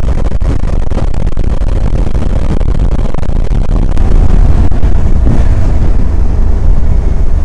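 Motorcycle riding at motorway speed: a loud, steady wind rumble on the microphone with riding noise beneath, getting louder about four seconds in.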